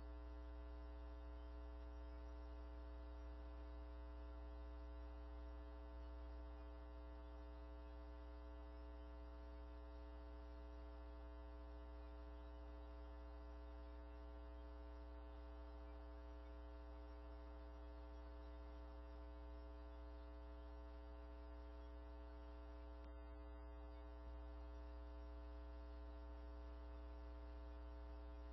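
Faint, steady electrical mains hum with a buzzy stack of overtones.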